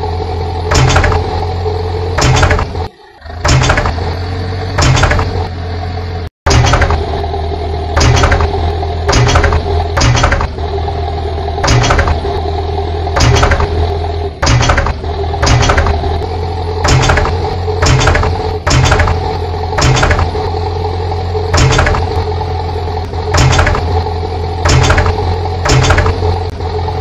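Heavy-machinery engine sound effect running steadily with a sharp clank repeating a little more than once a second, dubbed over toy construction vehicles. It dips about three seconds in and cuts out for an instant about six seconds in.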